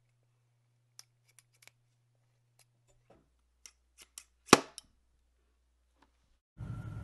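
Scissor points tapping and scraping against a stretched, foam-filled rubber balloon in a few light clicks, then the balloon pops with a single sharp crack about four and a half seconds in, the loudest sound. Near the end a steady hiss with a faint hum starts abruptly.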